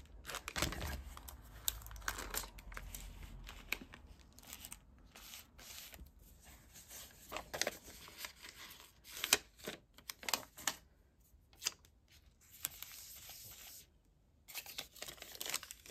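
Hands handling a plastic bubble mailer and a paper sticker sheet: irregular crinkles and rustles, with the ripping sound of a sticker being peeled from its backing and pressed onto the mailer.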